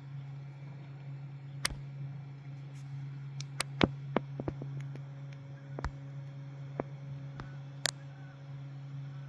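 A steady low hum, with a dozen or so light, sharp clicks and knocks scattered over it, the sharpest about four and about eight seconds in.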